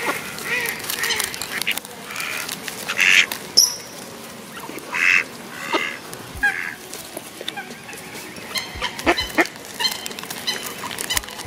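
Mallard ducks quacking repeatedly at close range, several short calls in a row, with a few sharp clicks near the end.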